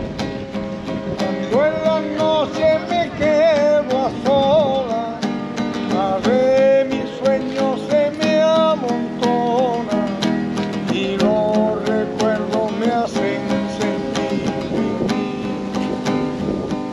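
A street musician playing acoustic guitar and singing. The voice comes in about a second and a half in and drops out around thirteen seconds, and the guitar keeps playing.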